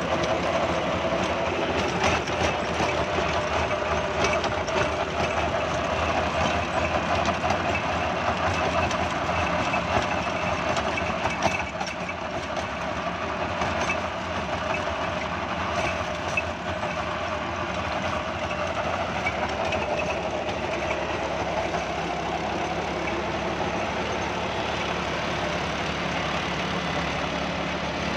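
John Deere 5075E tractor's diesel engine running steadily while it drives a gear-drive rotary tiller through the soil, the tiller's blades churning earth and crop debris in a dense, continuous mechanical din with scattered knocks. It drops slightly in level about twelve seconds in.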